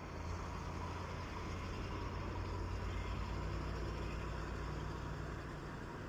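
ZIL-131 fire truck's V8 petrol engine running as the truck drives past, a low drone that swells toward the middle and eases slightly near the end. No siren is sounding.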